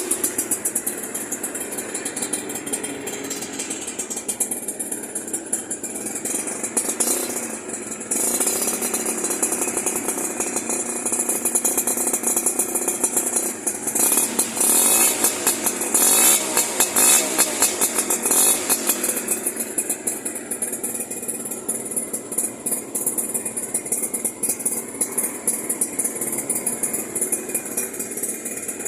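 Suzuki Tornado two-stroke motorcycle engine, stock, with an aftermarket PDK racing exhaust, idling and being revved up several times with a rattly, crackling exhaust note.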